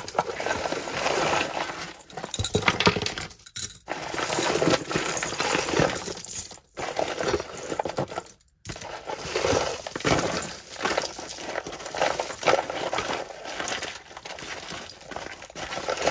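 Loose costume jewelry (metal chains, earrings and rings) clinking and jingling as it is rummaged and pulled apart by hand, with two brief breaks.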